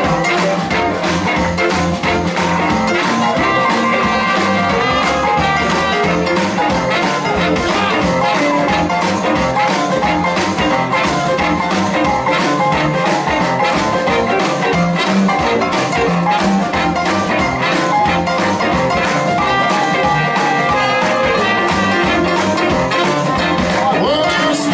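Live band playing a fast boogie-woogie number, with piano leading over a busy, even rhythm.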